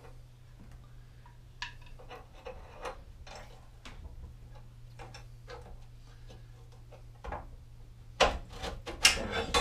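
Scattered light metal clicks and scrapes as a lawnmower front wheel and its bearing are worked off the axle by hand, with a few louder knocks near the end as the wheel comes away from the steel deck.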